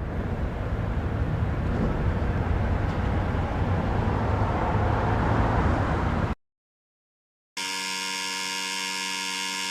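A loud, even rumbling noise for about six seconds that cuts off abruptly. After a second of dead silence, a steady, harsh buzzing alert tone begins near the end.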